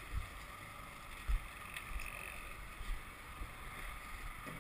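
Wind buffeting the microphone over a steady hiss of boat and sea noise, with a few low thumps.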